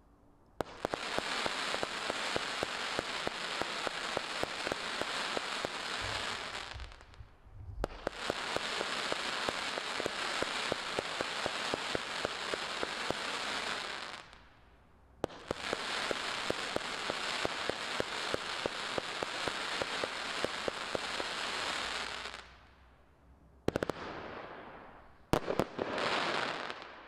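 A 67-shot consumer firework cake (Epic Fireworks VIP) firing, its shells bursting into dense crackling stars. The crackle comes in three long stretches of about six or seven seconds each, with short lulls between, then a few sharp loud bangs near the end.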